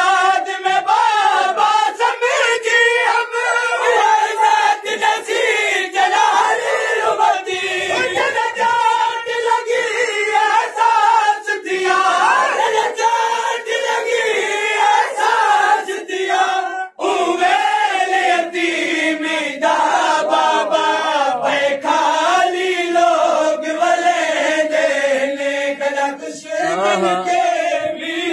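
A crowd of men chanting a noha, a Shia mourning lament, in unison, with repeated sharp slaps of hands beating on chests (matam) keeping time under the singing.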